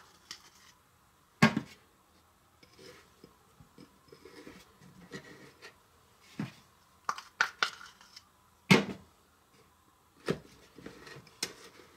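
A table knife scraping frosting onto a cake and clinking against the plate, with scattered sharp clicks and knocks of knife and plate; the loudest come about a second and a half in and near nine seconds, with a quick run of them around seven to eight seconds.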